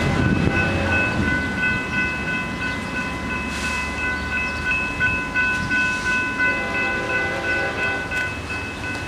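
Railroad grade-crossing warning bell ringing steadily, a fast-repeating ring held at one set of high pitches, over a low rumble that fades over the first few seconds.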